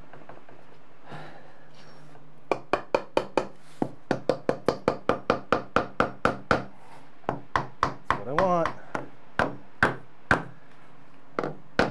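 Hammer tapping a glued wooden filler strip home into the cut end of a steel door: a fast run of sharp knocks, about three or four a second, starting a couple of seconds in, with a short break partway through.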